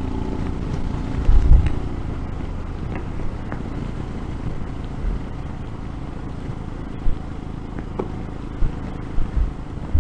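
Royal Enfield Himalayan's single-cylinder engine running steadily on the road, heard from the rider's position. A few brief low thumps stand out, the loudest about a second and a half in.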